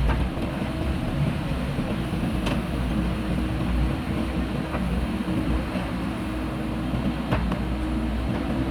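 Heavy diesel machinery running steadily, with a low rumble and two sharp knocks, one a few seconds in and one near the end.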